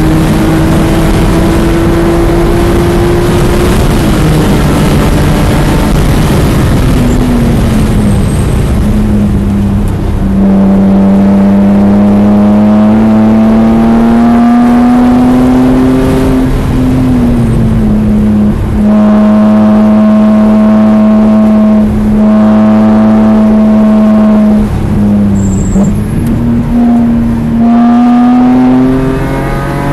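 BMW E46 M3's S54 inline-six at full throttle on track, heard from inside the cabin. The engine note climbs steadily under acceleration, then falls sharply several times as the driver lifts, brakes and changes gear for the corners, before climbing again near the end.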